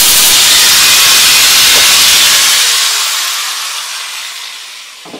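An angle grinder grinds a steel climbing spike held in a vise, cleaning the metal up for welding: a loud, steady hiss. About two and a half seconds in, the grinding stops and the grinder spins down, its whine falling and fading away.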